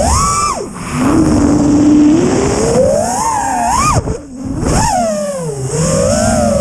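FPV racing drone's brushless motors and propellers whining over a rush of air. The pitch swoops up and down quickly as the throttle is worked. The whine drops out briefly twice, about a second in and again about four seconds in, as the throttle is cut and then punched again.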